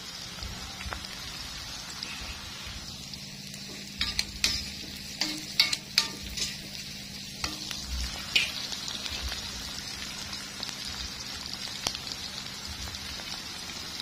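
Sliced chillies and seasonings frying in hot oil in a wok, a steady sizzle. A handful of sharp clicks and knocks cut through it between about four and eight and a half seconds in.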